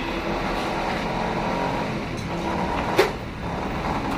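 A motor vehicle engine running steadily in the background, with a single sharp metallic clink about three seconds in.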